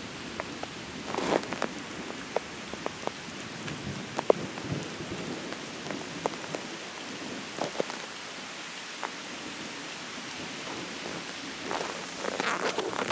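Steady rain falling, with scattered sharp drops striking close to the microphone; it swells briefly louder near the end.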